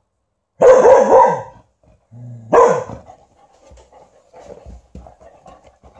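A dog barks loudly twice to be let out, the first bark drawn out, then pants quickly.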